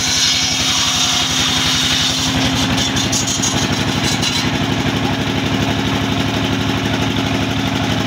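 Engine under a bench circular saw running steadily with a fast, even chugging pulse and a steady hum. A higher, harsher hiss sits over it for the first half and stops about halfway through.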